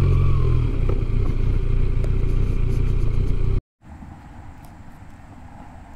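Motorcycle engine running at low revs as the bike rolls slowly over gravel, with a brief rise in revs near the start. About three and a half seconds in, the sound cuts off abruptly and gives way to a much quieter steady outdoor hiss.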